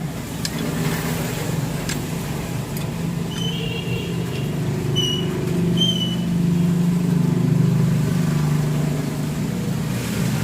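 A steady low engine hum with a slightly wandering pitch. It is joined by a couple of sharp clicks in the first two seconds and three short, high squeaks or chirps in the middle.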